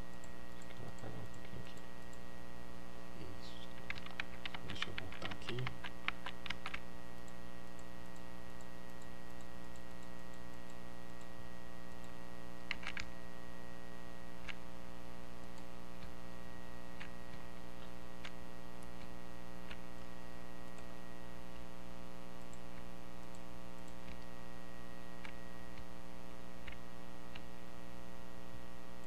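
Steady electrical mains hum, with a quick run of clicks about four to seven seconds in and then single sharp clicks every few seconds, from a computer mouse and keyboard in use.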